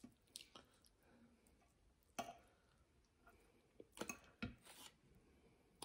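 Near silence broken by a few faint, short clicks and taps of a fork working at food on a plate while eating, the loudest cluster a little past halfway.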